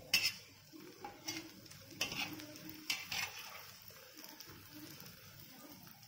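Metal spatula scraping and tapping on a hot griddle as a soft egg kalakki is folded over, with faint sizzling of egg in oil. There are several short scrapes in the first three seconds or so, then softer.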